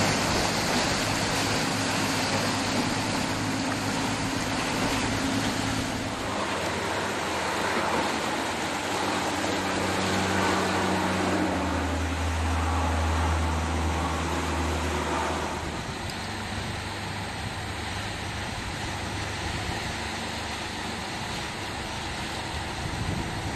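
Fast tidal current rushing and churning through a narrow rocky channel, a steady roar of moving water. Underneath runs the low hum of a boat engine, loudest about halfway through.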